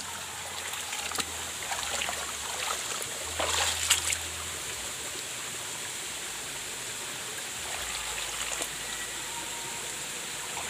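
Shallow stream water flowing and trickling over rocks, with a few brief splashes in the first half.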